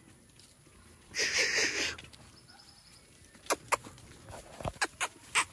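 Calves moving about a dirt yard: a short breathy rush of noise a little over a second in, then scattered sharp clicks of steps and hooves on the ground.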